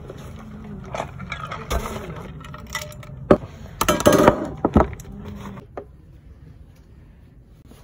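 Close handling noises: scattered clicks and crackles, a sharp knock a little over three seconds in, and a burst of crinkly rustling around four seconds, dying down to a low background for the last couple of seconds.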